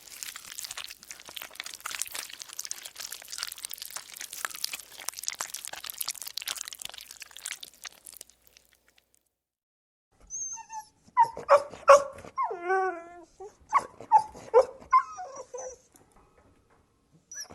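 A small dog yipping and barking in short, high-pitched yelps, with a whimpering whine among them. Before the dog, a crackly hiss runs for about eight seconds.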